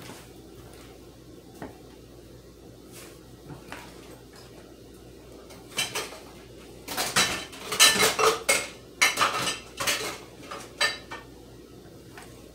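Kitchen dishes and metal utensils clattering: a few light clicks, then a dense run of sharp clinks and knocks lasting several seconds in the middle, dying away near the end.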